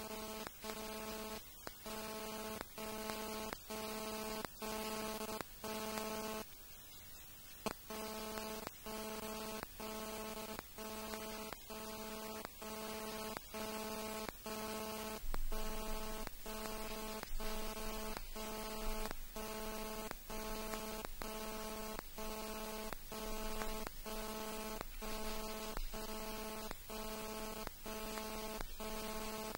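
Mobile-phone (GSM) interference buzz picked up by the recorder's audio circuit: an electronic buzz that pulses on and off about one and a half times a second, with a short break about six seconds in. A low hum joins about halfway through.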